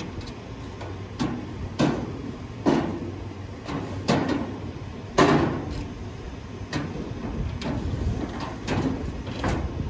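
Furniture being shifted and set down in a dump trailer: a string of irregular thumps and knocks against the trailer's wooden floor and steel sides, the loudest about five seconds in.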